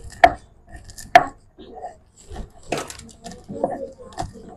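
Chickpeas being crushed on a sil-batta, a stone grinding slab worked with a hand-held grinding stone: several sharp cracks and knocks as the hard chickpeas break under the stone, with faint gritty grinding between them.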